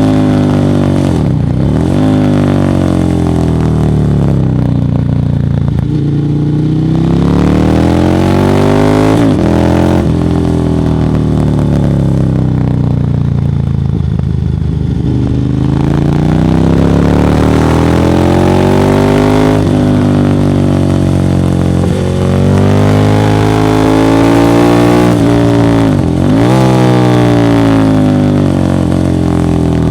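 Ducati Monster 1100 EVO's air-cooled L-twin running through Termignoni exhausts, its revs rising and falling in long, slow sweeps over several seconds, broken by a few brief, sharp dips.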